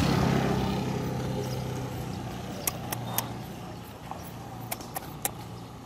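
A motor vehicle's low hum fading away as it passes, with two quick runs of three sharp clicks around the middle.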